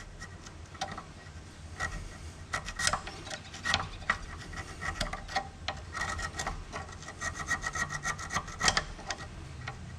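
Carbide-tipped hand scraper scraping rust and scale off the brake caliper surfaces where the pads ride, in quick, irregular strokes of metal on metal.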